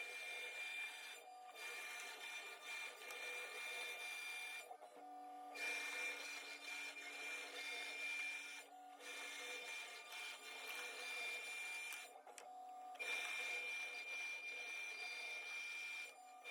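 CNC machine cutting POM (acetal) plastic, its spindle running with a steady high whine over the cutting noise. The cutting noise drops out briefly four times.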